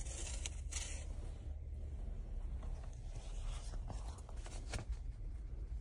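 Faint handling noise: light rubbing with a few soft ticks over a low steady hum.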